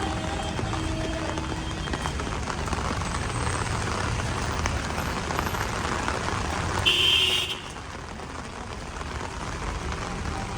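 Heavy rain and wet-road traffic: a steady hiss of rain and tyres with engines rumbling underneath. A short, high-pitched car horn beep sounds about seven seconds in.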